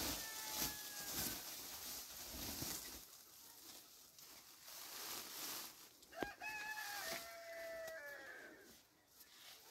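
A rooster crowing twice: one crow tailing off at the start and a second about six seconds in, falling in pitch at its end. In the first few seconds a large cloth is shaken and flapped out, rustling.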